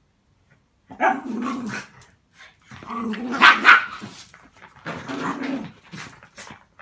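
Two small dogs play-fighting, growling and barking in three bouts after about a second of quiet, the loudest in the middle.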